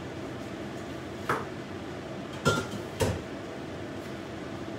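Kitchen utensils and dishes knocking against the countertop: one sharp clatter about a second in, then two more close together halfway through, over a steady low hum.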